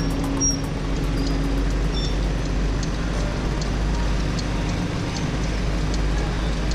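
Road noise from a go-kart driving in city traffic: a steady wind rumble on the microphone with kart engines and passing cars. Faint background music fades out over the first couple of seconds.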